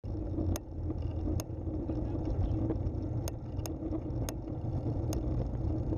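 Steady rumble of a recumbent trike rolling along cracked asphalt, heard from a camera mounted on the trike, with half a dozen sharp clicks at uneven intervals.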